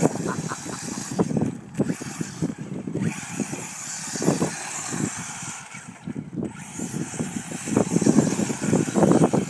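Radio-controlled HK Trooper short-course truck driving over a dirt track, its running sound dipping briefly a few times.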